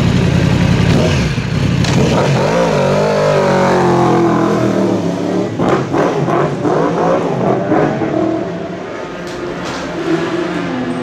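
Yamaha YZF-R1 superbike engine idling, then revving and pulling away with its pitch rising, several quick rises and drops in revs in the middle, before the engine note drops lower and quieter near the end.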